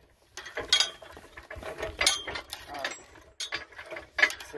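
Homemade scrap-metal crane clanking and rattling as it is rolled along on its wheels: irregular metal clicks and knocks with a few short squeaks.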